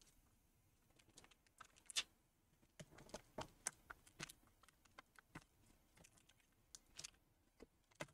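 Faint, scattered clicks and taps of a laptop battery pack being worked loose and lifted out of its bay by gloved hands, plastic knocking lightly against the laptop chassis; the loudest click comes about two seconds in.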